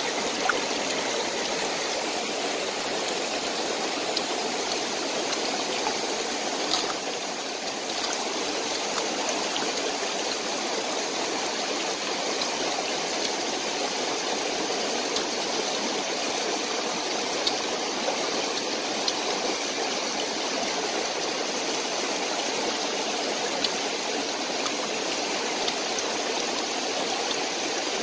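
Shallow rocky stream flowing steadily over stones in a continuous rush of water, with a few faint clicks here and there.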